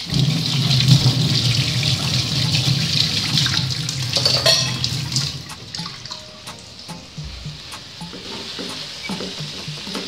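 Water running from a hose into a stainless steel sink and splashing over hands as something is rinsed; it stops about halfway through.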